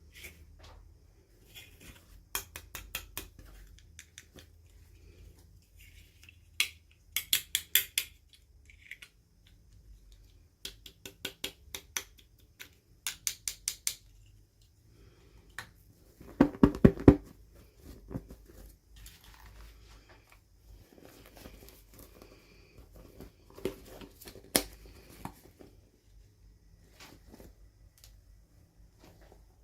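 Small toy packaging being opened by hand: short runs of rapid clicks and snips, with a louder handling burst about two-thirds of the way through.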